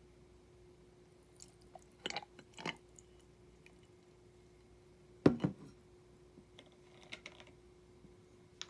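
Ice cubes in a glass mug clicking and cracking as bourbon whiskey is poured over them, with one sharp knock about five seconds in and a few lighter clicks after. A faint steady hum runs underneath.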